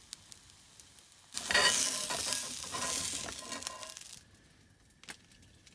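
Fried egg sizzling in a cast iron skillet, with faint crackles at first. About a second and a half in, a loud burst of sizzling and scraping starts as a spatula slides under the egg and lifts it, lasting nearly three seconds before dying back down.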